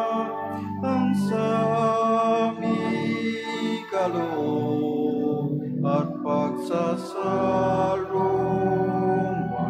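Church choir singing a Communion hymn with instrumental accompaniment, in long held notes.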